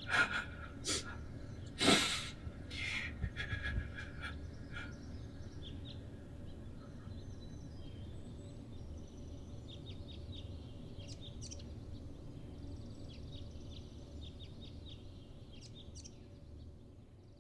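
Outdoor ambience: a low steady background hum with small birds chirping in short, scattered calls, after a few irregular knocks and thumps in the first seconds. It fades out near the end.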